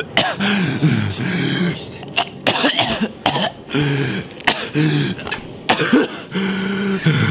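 A man coughing and groaning in pain: a string of short, strained voiced sounds broken by harsh coughs, with brief pauses between them.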